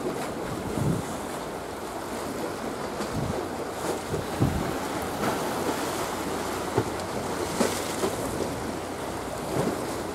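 Sea waves washing steadily, with wind on the microphone causing repeated short low buffets.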